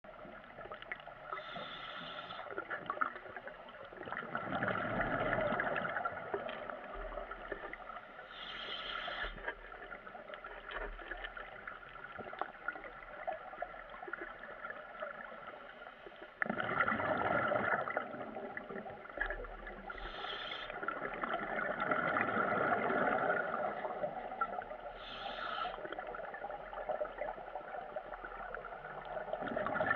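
Scuba diver's regulator breathing underwater: a short hiss on each inhalation and a longer gurgling rush of exhaled bubbles, repeating in slow, uneven breaths every several seconds.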